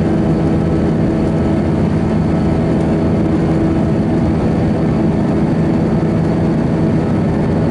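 Airbus A320 jet engines and airflow heard from inside the passenger cabin, in flight shortly after takeoff: a steady, loud drone with several held tones beneath it.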